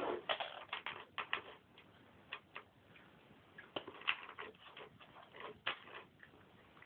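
Two cats eating from one shared food bowl: irregular sharp clicks of chewing and of teeth and tongues against the bowl, coming in clusters.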